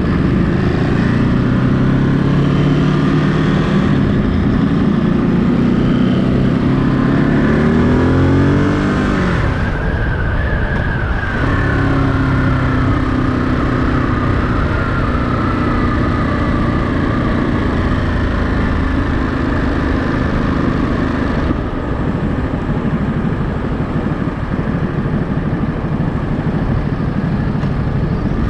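Ducati Monster 937's 937 cc L-twin engine under way, its pitch climbing for about nine seconds as it accelerates, then dropping sharply about ten seconds in and settling into a steady cruise that slowly eases off, over constant wind and road rush.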